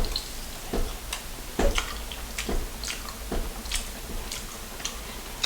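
Close-up eating sounds: chewing and wet smacking of the mouth on saucy fried chicken. Short, sharp smacks come every half second to a second.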